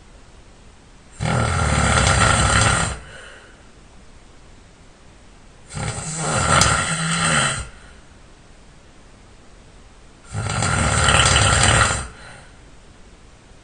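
A person snoring loud and hard: three long snores, each lasting under two seconds, coming about every four and a half seconds.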